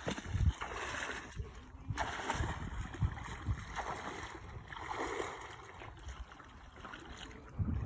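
Waterside ambience: water lapping and splashing, with uneven gusts of wind on the microphone.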